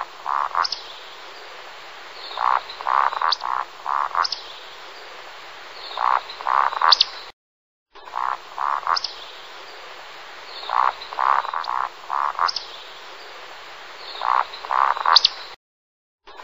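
Croaking animal calls in groups of rapid pulses, with faint high chirps above them. The recording drops out to silence twice and starts over, about every eight seconds.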